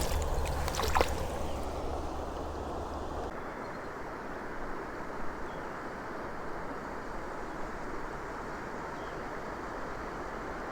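Creek water running steadily, an even rushing hiss, with a few brief sharp sounds in the first second.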